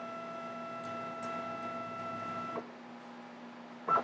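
Z-axis stepper motor of a small CNC mill whining steadily as the head jogs down toward the work, cutting off about two and a half seconds in. A short knock comes near the end.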